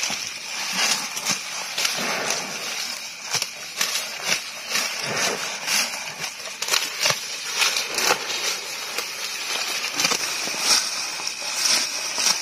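Water buffalo grazing close up, tearing and chewing tall grass: irregular crunching and ripping of stems a couple of times a second, over a steady high-pitched hiss.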